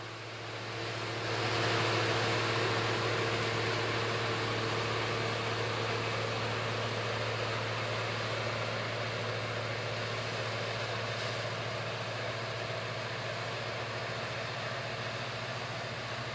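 Claas Mega 204 combine harvester running at work in the field, its engine and threshing machinery making a steady low hum under a broad rushing noise. The sound swells over the first couple of seconds, then holds steady.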